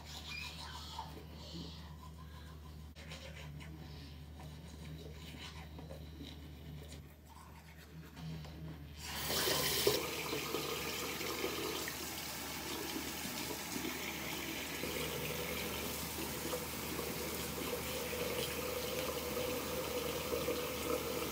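Toothbrush scrubbing teeth, faintly at first. About nine seconds in, a bathroom tap starts running into the sink, a steady rush of water that becomes the loudest sound.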